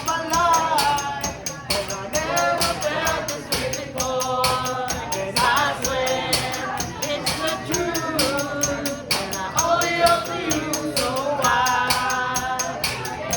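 Background music with a steady percussive beat under a melody.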